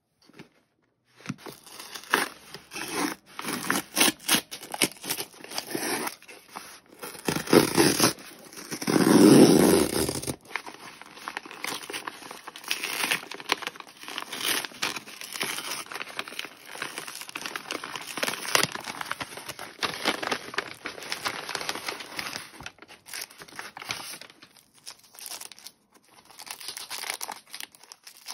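Packaging being opened by hand: a taped cardboard mailer torn open, then a padded paper envelope crinkled and handled, and near the end the cellophane wrap on a Traveler's Notebook rustling. The loudest tearing comes between about seven and ten seconds in, with quieter, irregular crinkling after.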